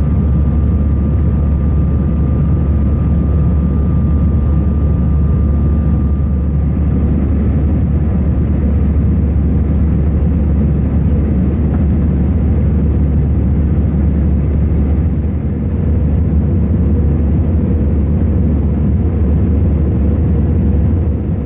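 Airbus A320 cabin noise in flight: the steady, loud drone of the jet engines and airflow heard from a window seat over the wing, heaviest in the low rumble. A faint steady high whine sits on top during the first part and then fades.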